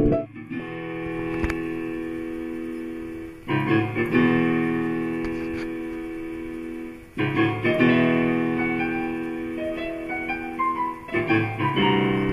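Piano played slowly: four sustained chords struck a few seconds apart, each left to ring and fade, with a few single notes stepping upward in the treble near the end.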